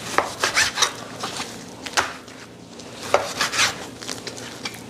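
Knife cutting raw beef sirloin on a cutting board, with sharp knocks and short scrapes of the blade against the board: a few near the start, one about two seconds in, and a cluster a little after three seconds.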